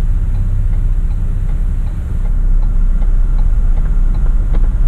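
Ford Transit van's engine idling at a standstill, heard inside the cab as a steady low rumble, with a faint regular ticking over it.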